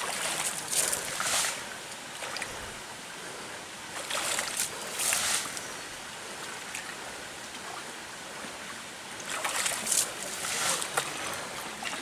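Paddy water being bailed by hand with a plastic basin and flung up onto a higher rice terrace: splashes and sloshing in pairs every four to five seconds, with quieter water noise between.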